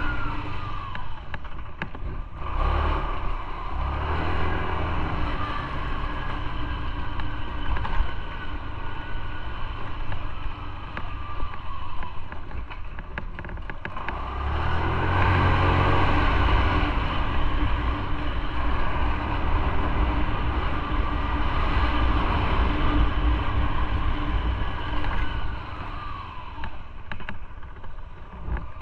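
Motorcycle engine running while riding, over wind and road noise. The engine note falls near the start and again near the end, and grows louder about halfway through as it pulls harder.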